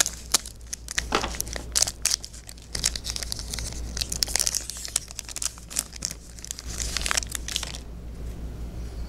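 The wrapper of a jumbo pack of 2018 Score football trading cards being torn open and crinkled by hand: a dense run of sharp crackles that dies down near the end.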